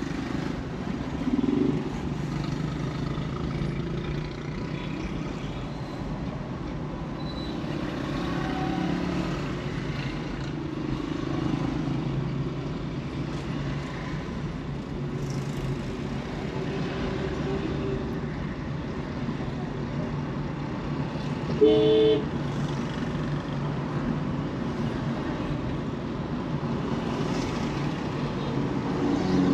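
Steady road and traffic noise from a car driving through city streets, a low, even rumble of engine and tyres. About three-quarters of the way through, a vehicle horn gives one short honk, the loudest sound in the stretch.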